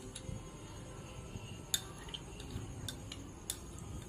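Low, steady background noise with four small sharp clicks spread over a few seconds, the second one the loudest.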